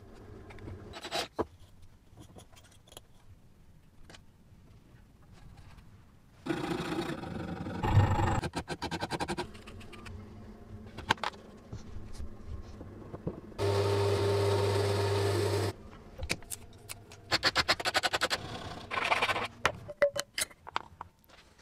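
Small metal hand-work sounds: scraping and rubbing of metal parts and filler, sanding strokes, and clicks. A screwdriver prying at a metal putty tin's lid rim comes near the end. Partway through, a small motor hums steadily for about two seconds.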